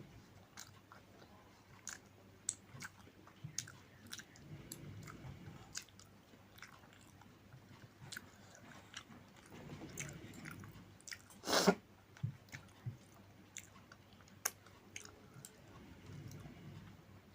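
Close-miked chewing and biting of a rice-and-curry meal, with many small wet mouth clicks and smacks between soft chewing sounds. One brief, louder noise comes about two-thirds of the way through.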